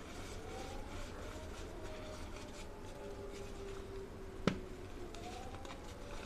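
Street dogs howling outside, several long howls that rise, hold and fall, overlapping at different pitches, over the soft crumbling of dry gray clay powder in the hands. A single sharp click about four and a half seconds in is the loudest sound.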